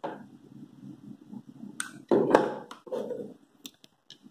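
Handling noise from a plastic panel-mount PID temperature controller: one sharp knock a little over two seconds in as it is put down on a table, followed by a few light clicks near the end.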